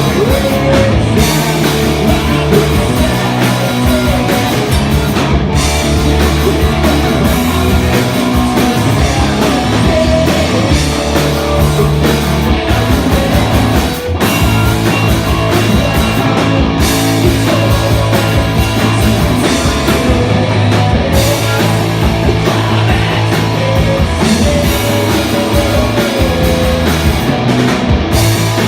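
Live rock band playing loud, with guitar and drum kit, and a brief drop in the sound about fourteen seconds in.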